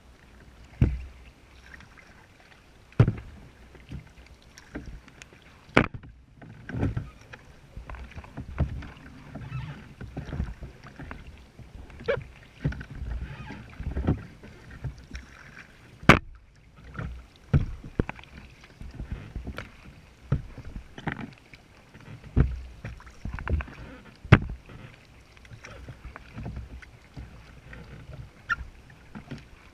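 Kayak being paddled: paddle strokes splashing into choppy water every second or two, water lapping at the hull, and irregular sharp knocks, the loudest about 16 and 24 seconds in.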